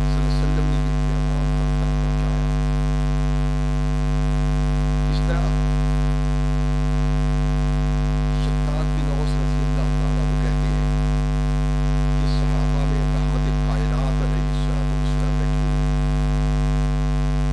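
Steady electrical mains hum in the sound system: a low buzz with a ladder of overtones that does not change, with faint wavering traces of a voice beneath it now and then.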